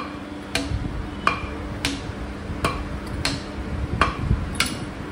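Repeated metallic taps, about eight strikes, roughly one every two-thirds of a second, each with a brief ring, like a hammer striking metal parts. A steady low hum runs underneath.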